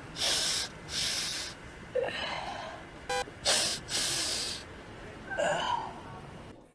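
A person snorting powder through a glass tube: about six quick, hard sniffs in a row. A short electronic beep sounds about three seconds in.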